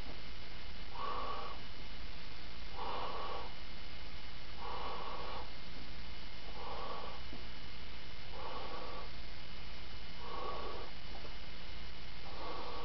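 A large Suzuki latex balloon being blown up by mouth: a rhythmic breath about every two seconds, seven in all, as air is drawn in and blown into the balloon.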